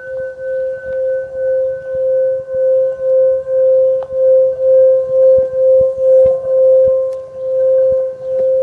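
Singing bowl ringing with one steady tone and faint higher overtones, its loudness pulsing in a slow wobble about twice a second.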